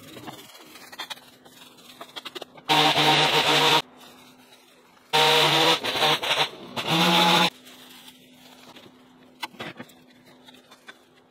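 Small petrol engine, of the kind on a garden power tool, running quietly and then revved hard twice: first for about a second, then for about two seconds.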